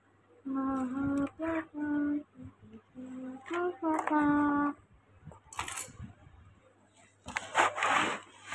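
A boy humming a short tune in a few held notes, then a brief rustle of handling noise near the end as the phone is moved.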